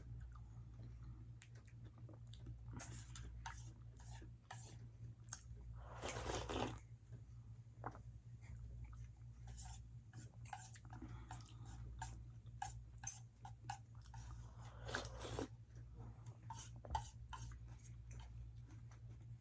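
Close-up mouth sounds of a person eating ramen noodles: chewing with scattered small clicks, and two longer, louder sounds about six seconds and fifteen seconds in, over a low steady hum.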